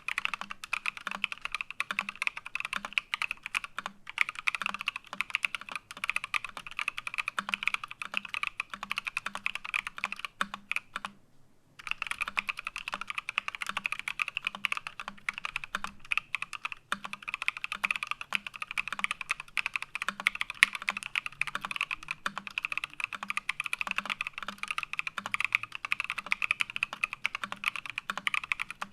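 Continuous fast typing on a PC Think 6.5 mechanical keyboard with lubed Paco switches, an integrated plate and PBT keycaps, with a brief pause about eleven seconds in.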